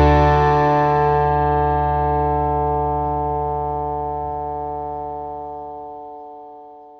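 Background music: a single held chord ringing out and slowly fading away, its bass dropping out near the end.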